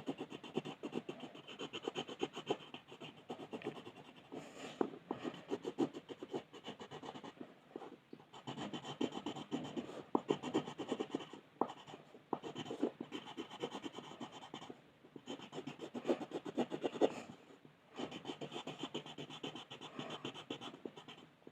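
Rapid back-and-forth colouring strokes scratching on paper, coming in runs broken by short pauses.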